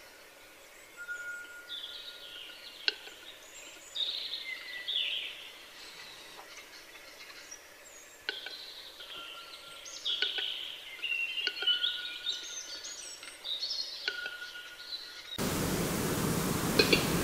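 Western capercaillie display: single sharp clicks spaced one to a few seconds apart, among songbirds singing and a short whistle repeated several times. About fifteen seconds in, the sound cuts abruptly to a louder, noisy rustle.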